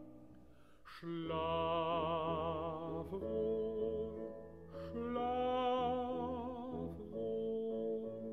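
Classical art song: a baritone voice sings two long held phrases with wide vibrato over piano accompaniment, with a brief lull at the start.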